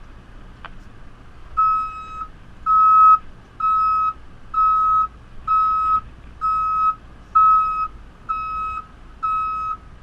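Reversing alarm of a JCB 3CX backhoe loader beeping at a steady single pitch, about once a second, starting just under two seconds in, over the low hum of the machine's engine, as the backhoe reverses.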